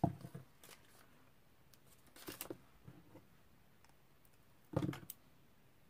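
Faint handling of cardstock and paper pieces: a few short taps, clicks and rustles in separate groups, as pieces are pressed and positioned.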